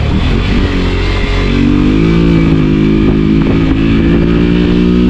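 Motorcycle engine running under way, its pitch rising about one and a half seconds in as it accelerates, then holding steady, over a low rumble of wind on the microphone.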